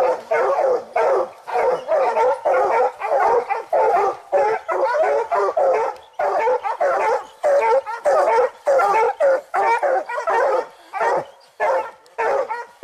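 Bear hounds barking without a break, several dogs' calls overlapping at about three or four a second.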